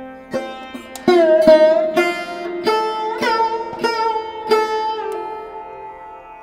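Instrumental background music: a plucked string instrument plays a slow melody whose notes bend in pitch, over a steady drone.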